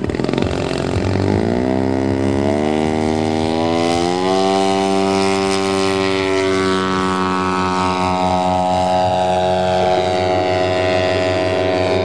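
Engine of a 40% scale Piper Pawnee radio-controlled model airplane on its takeoff run. It rises steadily in pitch over about three seconds as the throttle opens, then holds a steady high pitch through liftoff and climb-out.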